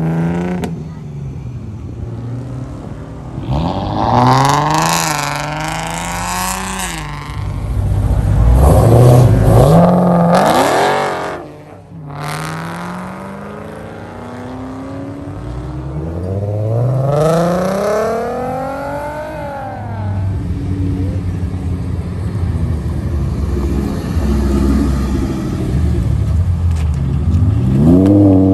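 Sports cars revving hard as they pull away one after another, each engine note climbing in pitch in repeated surges as it accelerates. A Nissan 370Z's V6 pulls away at the start and an Audi R8 Spyder near the end.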